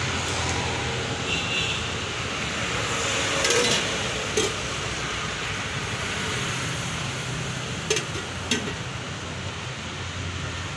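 Steady street traffic noise with a low engine rumble, and several sharp clinks of a steel ladle against steel pots and plates.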